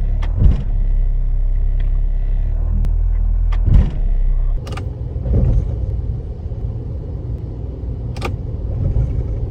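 Car idling while its automatic transmission is shifted out of neutral into drive or reverse. The gear goes in with a clunk, twice, the louder one about four seconds in, and the idle note changes just after. A hard engagement like this is usually a sign of low internal oil pressure or degraded transmission fluid, and can also come from worn solenoids.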